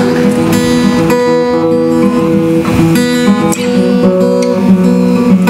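Acoustic-electric guitar strumming a steady chord pattern as the song's instrumental introduction.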